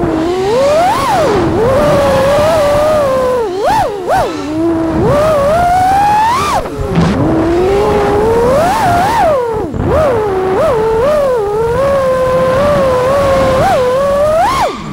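FPV freestyle quadcopter's brushless motors and propellers whining, the pitch sweeping up and down constantly with the throttle and dropping sharply a few times as the throttle is cut.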